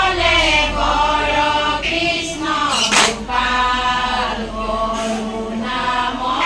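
A group of women singing an Assamese naam-prasanga devotional chant together, in long held notes. A short sharp sound cuts in about three seconds in.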